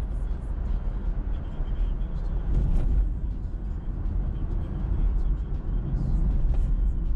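Road noise from a car driving: a steady low rumble of tyres and engine, with a brief louder rush about three seconds in.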